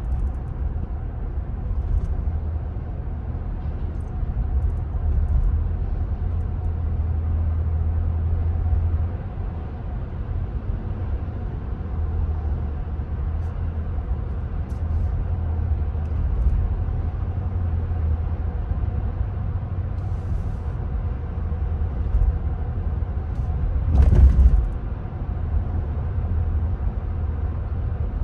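Road and engine noise inside a moving car's cabin on a highway: a steady low rumble, with a brief louder rush about 24 seconds in.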